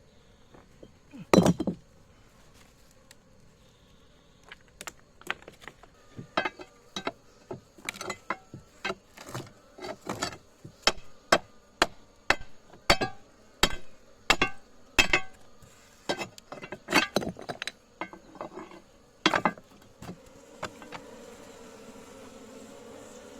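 A run of sharp knocks, irregular and at times about two a second, with a single loud one first. Near the end a steady insect buzz takes over.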